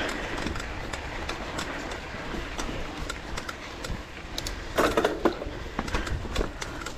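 Enduro dirt bike ridden over rough trail: the engine runs low and uneven under frequent knocks and rattles, with a louder burst of clattering about five seconds in.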